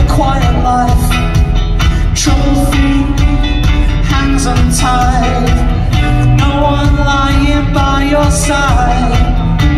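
Live pop-rock band playing loud: electric guitars and drums with a steady beat, and a melody line gliding over the top.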